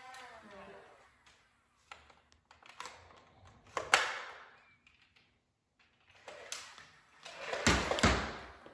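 Nerf Rapidstrike CS-18 motorised dart blaster being worked and fired: a few light clicks, then a sharp burst about four seconds in and a longer, heavier one near the end.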